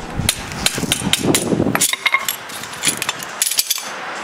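Irregular metallic clicks and clinks from a knife and hammer being worked against the ground-down metal on a rear brake line bracket to break it loose, with a rustling scrape through the first couple of seconds.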